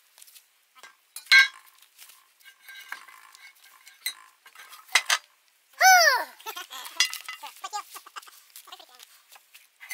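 Pieces of scrap iron clanking and clinking as they are handled and dropped on the pile, with one loud ringing clank about a second and a half in. A short, high cry that rises and falls in pitch cuts in around the middle.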